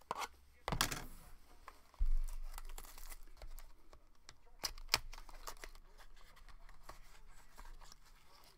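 Foil wrapper of a trading-card pack crinkling and tearing open in the hands, a few sharp rips, with a dull thump about two seconds in.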